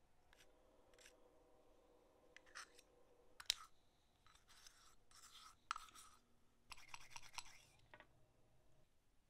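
Faint scratchy scrubbing of a small wire brush inside a metal clutch master cylinder body, in short strokes over the second half. Before it come a few light clicks of small metal parts being handled, the sharpest about three and a half seconds in.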